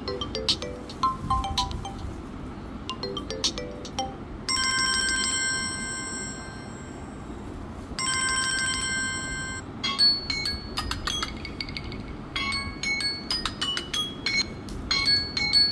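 Samsung Galaxy A03 ringtones playing one after another. A short melodic tune plays first. About four seconds in, a steady bell-like electronic ring sounds twice, and about ten seconds in a quick, high chiming melody takes over.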